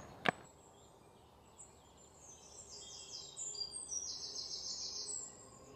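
A songbird singing a string of high chirps and rapid trills that grow louder over the last couple of seconds, over faint outdoor background noise. There is one sharp click just after the start.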